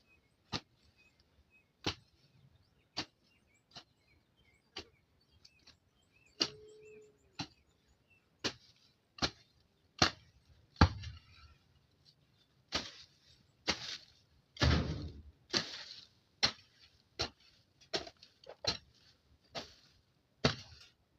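Jembe (hand hoe) chopping into soil and grass, a steady run of sharp strikes: about one a second at first, then quicker and harder from about halfway through.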